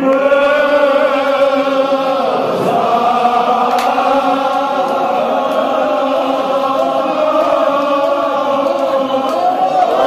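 Men's voices chanting a Kashmiri marsiya, a Shia mourning elegy, together in long drawn-out held notes, with a brief break about two and a half seconds in.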